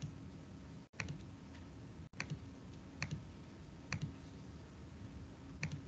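Faint computer clicking: about six short, sharp clicks roughly a second apart over a low steady hum, the sound cutting out for an instant twice early in the run.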